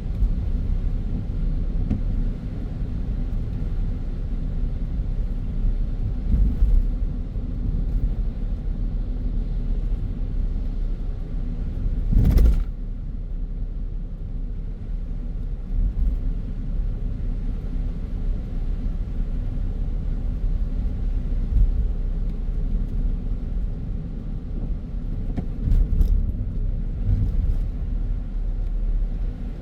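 Car driving on a city road: a steady low rumble of road and engine noise. A single sharp thump cuts through about twelve seconds in, and the rumble swells briefly a couple more times.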